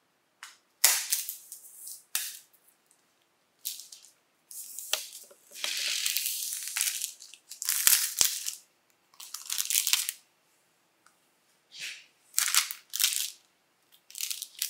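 Clear plastic shrink wrap crinkling and tearing as it is pulled and peeled off a laptop box, in a series of short crackly bursts.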